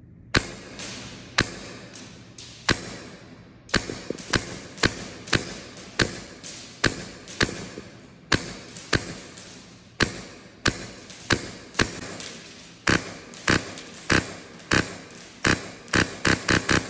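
HPA (high-pressure air) airsoft rifle firing, a sharp crack for each shot with a long echo off a large hall. The shots come one at a time, about one or two a second, and quicken into a fast string of shots near the end.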